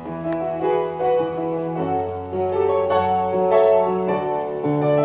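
Music led by a keyboard, playing held chords over a low bass line, the notes changing about every second.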